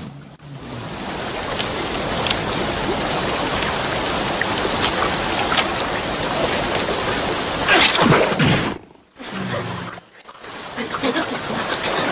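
Steady rushing water noise, with a louder swell about eight seconds in and two short dropouts just after it.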